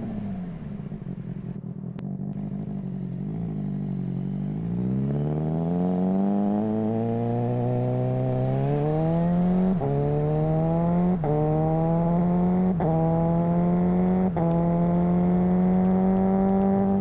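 Suzuki GSR600 inline-four through a GPR Ghost aftermarket exhaust, running low for a few seconds, then accelerating hard with the pitch climbing. Four quickshifter upshifts follow about a second and a half apart, each a brief sharp cut with a drop in pitch before the revs climb again, and near the end the engine holds a steady note.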